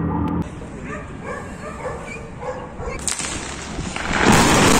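Dogs barking a few times, then about four seconds in a loud peal of thunder that swells up and holds.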